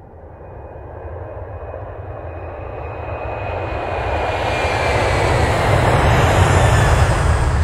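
Aircraft approaching: a rushing engine noise swelling steadily louder, with a faint high whine slowly falling in pitch.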